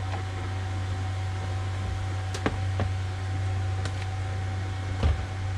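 Steady low drone of the sailboat's engine while motoring, with a few light clicks and knocks of plastic food containers being handled in the galley.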